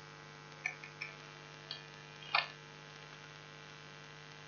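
A handful of faint computer keyboard taps, about five, the loudest about two and a half seconds in, over a steady electrical mains hum.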